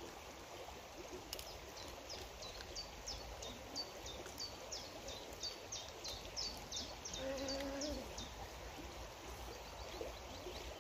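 A small bird calling over and over: short, high, falling chirps about two a second, over steady outdoor background noise. About seven seconds in there is one short, low humming sound.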